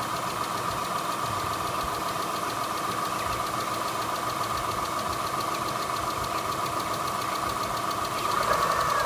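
Mitsubishi Galant engine idling with a steady rhythmic ticking from a hydraulic lash adjuster (lifter) that is not pumping up properly; a Liqui Moly oil additive has not cured it. It gets a little louder about eight seconds in.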